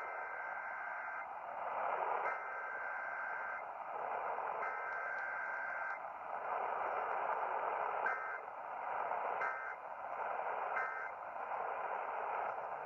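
Emergency Alert System weekly test data bursts heard over a hissy radio signal: three roughly one-second bursts of the two-tone SAME header, then three short end-of-message bursts, with no spoken message between them.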